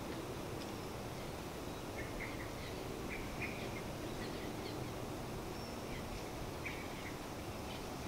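Birds chirping in short, scattered calls over a steady rush of wind.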